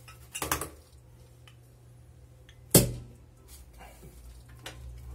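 A glass beer bottle being opened by hand: a short scrape about half a second in, then one sharp pop near three seconds in as the cap comes off, followed by a few faint ticks.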